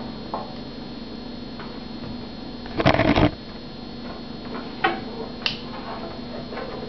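Handling noise as a banjo is lifted off its stand and slung on by its strap: a loud scraping rustle about three seconds in, then a few short sharp clicks and knocks.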